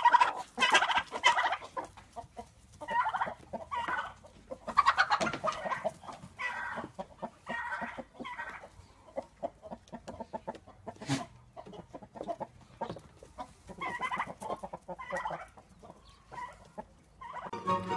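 Chickens clucking in repeated bursts of quick notes, with quieter gaps between, and a single sharp click about eleven seconds in.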